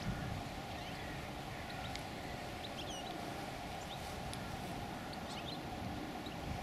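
Scattered short bird chirps over a steady low rumble and hum, with a brief low thump right at the start.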